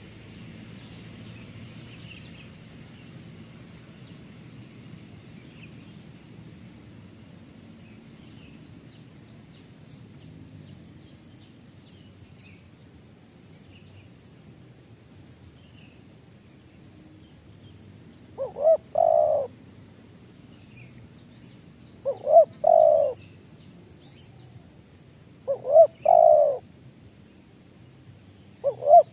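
A bird cooing: a short note followed by a longer one, repeated four times about every three and a half seconds in the second half, with faint high chirping from small birds throughout.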